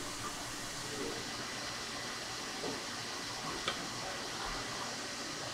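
A steady hiss of kitchen background noise, with one sharp knock of a steel cleaver on a wooden cutting board about two-thirds of the way through.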